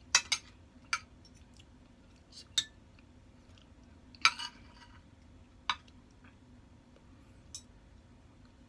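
Cutlery clinking against a plate while eating: about seven sharp taps spread irregularly over a few seconds, with the loudest a little past the middle.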